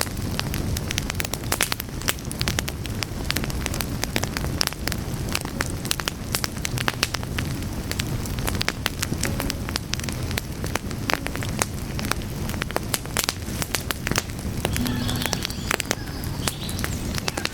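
Wood fire burning, with dense, irregular crackles and pops over a steady low rush of flame.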